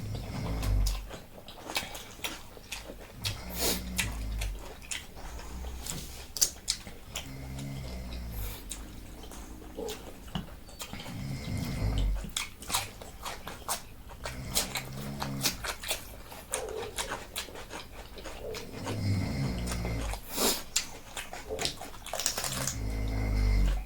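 Close-miked eating sounds from people eating Korean noodles and side dishes: wet chewing and slurping, with many sharp clicks throughout. Short low mouth noises come every few seconds.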